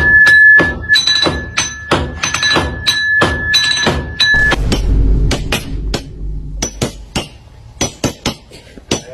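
A quick, irregular series of sharp taps and knocks, with a steady high-pitched tone under them that stops about halfway through.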